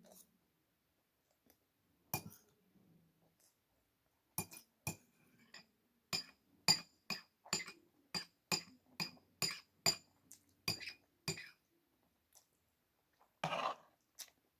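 An eating utensil clinking against a dish: a few scattered clinks, then a steady run of sharp ringing clinks, about two a second, as food is scooped up. A short scraping noise near the end.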